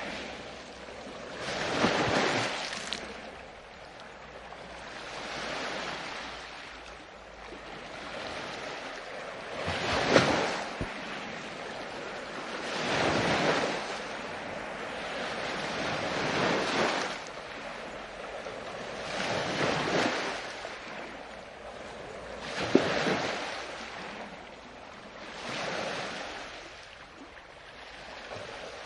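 Ocean surf: waves breaking and washing up a beach one after another, a new surge swelling and fading about every three seconds, a few with a sharper splash at the crest.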